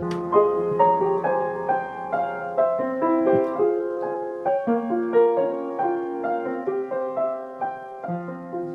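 Solo piano playing the hymn tune as an instrumental passage once the singing has stopped: a slow melody of distinct notes over light chords.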